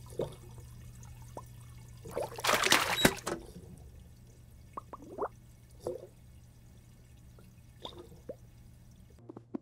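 Cartoon goldfish-tank sounds: a steady low aquarium hum with small bubbly blips scattered through, and a short burst of splashing water about two seconds in, the loudest moment.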